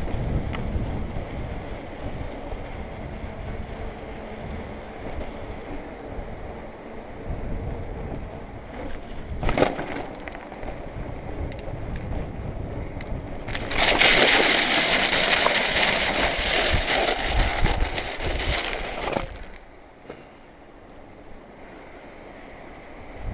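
Wind buffeting the microphone as a bike rolls along a concrete path, with a sharp knock about ten seconds in. Then for about five seconds the tyres make a loud gritty hiss over loose shingle strewn on the path, which stops suddenly.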